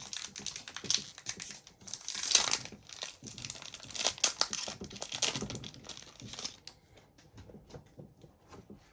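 Upper Deck hockey card pack wrapper crinkling and tearing as the pack is opened, loudest about two seconds in. Fainter light ticks follow for the last couple of seconds.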